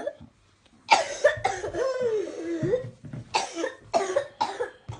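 A bout of whooping cough (pertussis). About a second in, a run of sharp coughs comes on suddenly and leads into a long strained sound that wavers in pitch. From about three seconds in, several more separate coughs follow.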